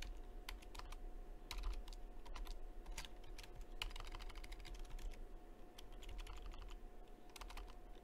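Typing on a computer keyboard: a run of irregular keystroke clicks, with a faint steady hum underneath.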